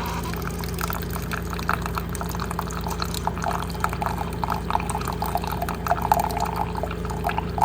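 Keurig K-Select single-serve coffee maker brewing: a steady low hum from the machine under coffee streaming and splashing into the mug with irregular small drips.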